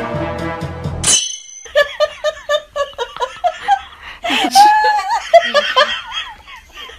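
Laughter in quick, repeated bursts with bending pitch, following a short rising whistle about a second in that ends a stretch of music.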